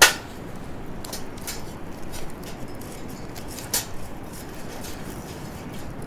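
Wood fire burning in a fire pit, with a steady low rush of flame and sharp crackles and pops: a loud one right at the start, then a few more, one nearly four seconds in.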